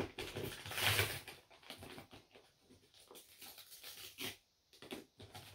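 Faint rustling, scraping and small taps of a tightly packed cardboard parcel being worked open by hand, with a short louder rustle about a second in.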